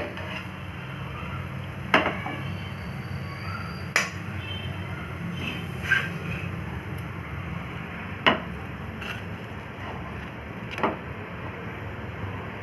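Five sharp knocks, roughly two seconds apart, over a steady low background hum.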